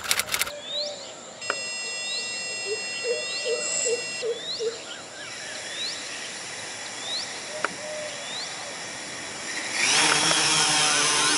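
An S550 hexacopter's electric motors start up: a steady high whine sets in about a second and a half in, and about ten seconds in the propellers spin up into a loud rushing noise. Birds chirp over and over in the background.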